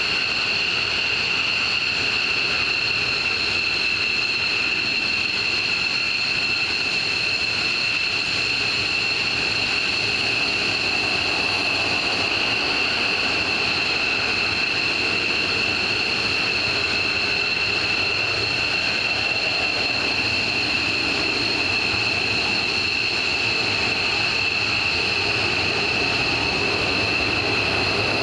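F-15 Eagle fighter jets' twin turbofan engines running at taxi power: a steady high turbine whine with two held high tones over a rushing jet noise, unchanging throughout.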